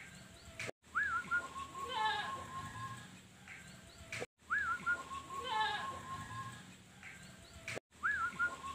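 Zebra dove (perkutut) singing: a short rising-and-falling note followed by a string of quick cooing notes. The phrase repeats about every three and a half seconds, broken by brief dead-silent gaps.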